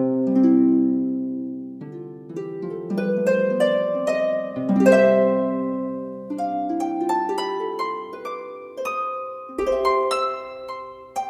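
Background music of plucked harp notes in stepping melodic runs, each note ringing and fading, starting abruptly after a moment of silence.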